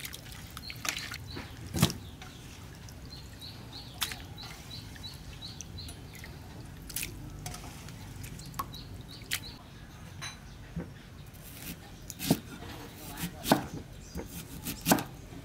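Water sloshing and dripping as raw chicken pieces are rinsed by hand in a metal bowl and drained. Near the end a cleaver chops onion on a wooden chopping block in a few sharp knocks.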